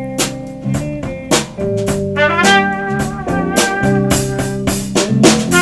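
A band playing jazzy music: a brass melody, trumpet-like, sliding between held notes over regular drum kit hits.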